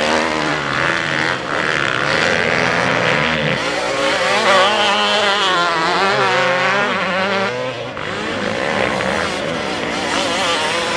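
Several motocross bikes' engines revving hard as they race, their pitch rising and falling with throttle and gear changes, with a brief dip in level about eight seconds in.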